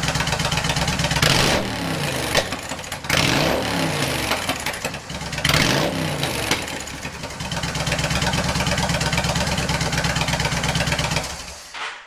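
Yamaha XVS 1300 V-twin on open drag pipes idling, then blipped three times with popping as the throttle is released, and switched off near the end. The popping comes from the open exhausts running a less than ideal mixture on stock fuelling, not from the rev limiter.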